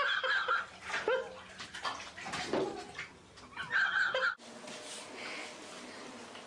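A toddler squealing and splashing in a bathtub of water, with high, wavering cries and sloshing. About four seconds in, this stops abruptly and only faint room sound remains.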